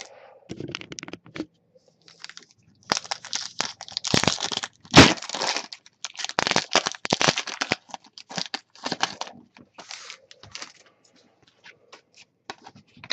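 A hockey card pack's wrapper being torn open and crinkled by hand: irregular crackling and tearing, loudest a few seconds in and dying away near the end.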